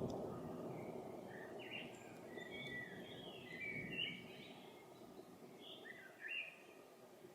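A small bird chirping in quick runs of short notes, with a pause before a last run near the end, over the low rumble of distant thunder dying away.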